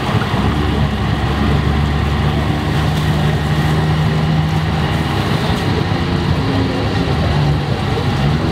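Four-wheel-drive competition truck's engine running steadily, its engine speed changing a few times.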